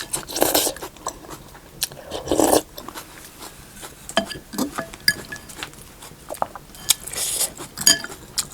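A person eating hot soup food close to the microphone: chewing with many small wet clicks, and a few louder noisy bursts of slurping or sipping.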